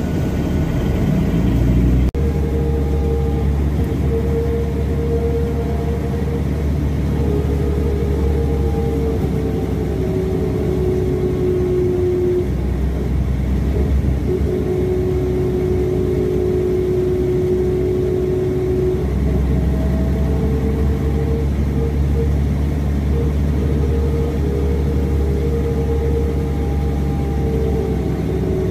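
Interior sound of a 1985 Mercedes-Benz O305 city bus under way: a steady diesel engine and drivetrain rumble with a whine that shifts in pitch, dropping a little and later rising again as the bus changes speed. The sound cuts out for an instant about two seconds in.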